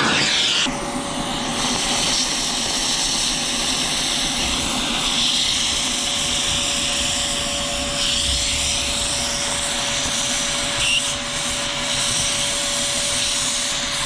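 DeWalt 38-litre stainless steel wet and dry vacuum running steadily, sucking sugar out of car seat creases through a narrow nozzle attachment. A steady tone joins the rush of air under a second in.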